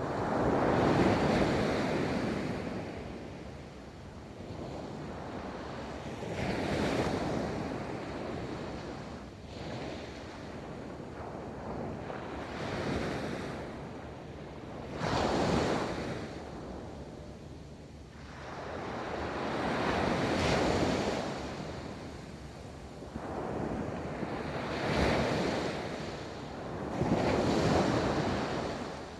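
Ocean waves breaking and washing up a beach, the surf swelling and falling back in rushes every few seconds.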